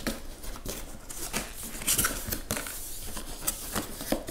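Cardboard shipping box being cut along its end seam with a thin pointed tool, then the end flap pulled open: irregular scraping and tearing of cardboard with scattered clicks.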